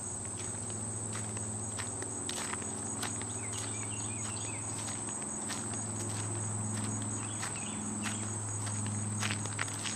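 Steady high-pitched trilling of crickets, with a low hum beneath and irregular light clicks and taps.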